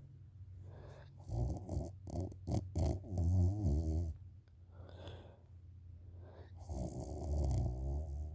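A woman snoring in deep sleep: two long snores, one starting about a second in and another near the end, with a softer breath between them.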